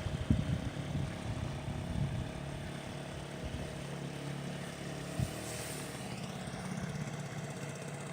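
Motorboat engine running steadily: an even, low hum.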